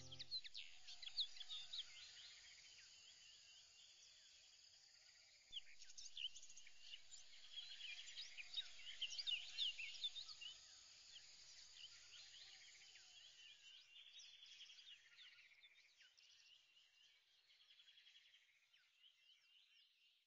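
Faint birdsong: many small birds chirping and twittering together. It gets louder about five seconds in, then slowly fades and dies away near the end.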